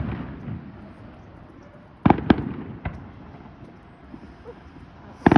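Fireworks exploding: a pair of sharp bangs about two seconds in, two smaller cracks right after, and another bang near the end. Each bang trails off in a rolling echo.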